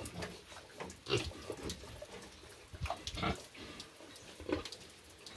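Young pigs grunting now and then: a few short grunts with gaps between them.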